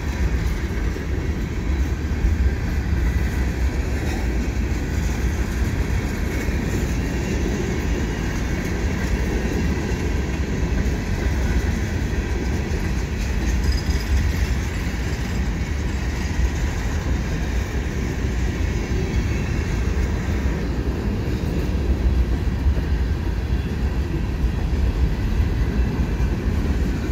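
Freight train of tank cars rolling slowly past: a steady low rumble of steel wheels on the rails.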